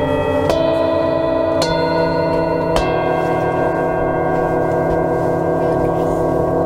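A set of Tibetan singing bowls struck one after another with a mallet: three strikes about a second apart, each adding a new ringing tone. The tones then ring on together as one layered chord with a slow pulsing beat.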